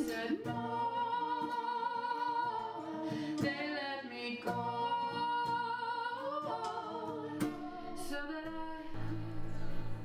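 A song with a woman singing long held notes over a soft backing.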